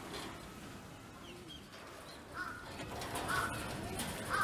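Birds calling in the background, quietly at first, then short calls repeating about once a second in the second half.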